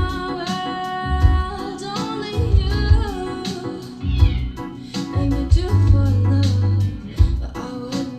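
Electronic music with heavy bass hits about once a second under held synth chords and a sliding lead melody, played back through Bang & Olufsen Beolab 28 active speakers.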